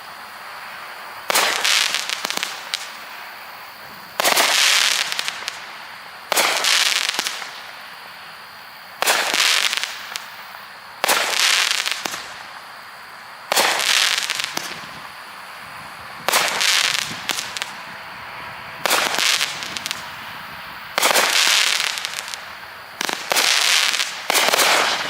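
A Heavyweight Crackle Frenzy consumer firework cake firing shot after shot, about every two seconds. Each shot is a sharp bang that breaks into a second-long burst of crackling.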